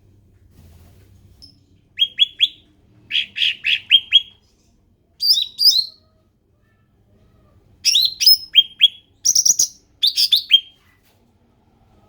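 Cucak ranting bird singing: repeated bursts of two to five short, quick, falling whistled notes, with short pauses between the phrases.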